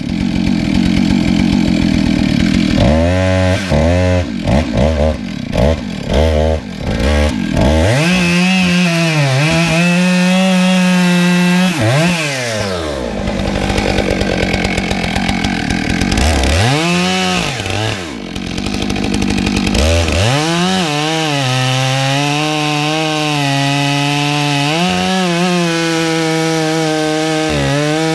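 Chainsaw fitted with a long bar, revved in several short blips. It then runs at high revs for a few seconds and drops back, revs twice more, and from about twenty seconds in runs steadily near full throttle with small dips in pitch as it rips a firewood round lengthwise along the grain (noodling).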